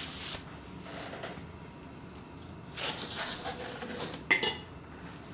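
Tableware being handled during a meal: a few soft scraping sounds, then one sharp clink with a short ring about four seconds in.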